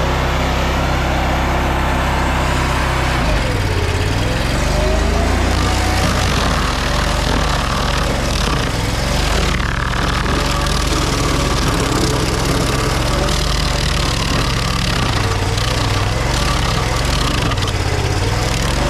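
Toro tracked stump grinder running hard, its toothed cutting wheel grinding into a large conifer stump and chewing it into chips. The engine note dips and recovers about four seconds in.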